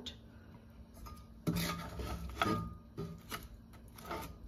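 Silicone spoon and wooden spatula scraping and rubbing in a nonstick wok of fried chicken legs as a thick yogurt masala is spooned over them. There are a few short scrapes, the two loudest near the middle.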